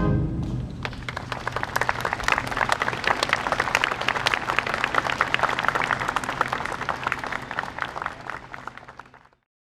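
Audience applause: many hands clapping densely, tapering off and ending about nine seconds in.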